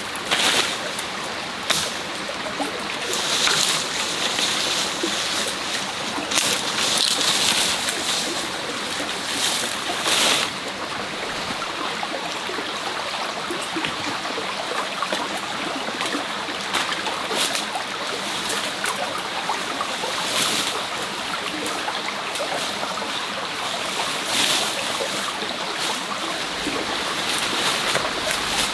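Small forest stream running steadily, with short higher hissing bursts every second or few seconds over it.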